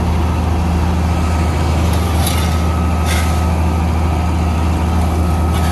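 NIGATA NFB6C asphalt paver's diesel engine running steadily at working speed, a loud low drone, with two short hissing bursts about two and three seconds in.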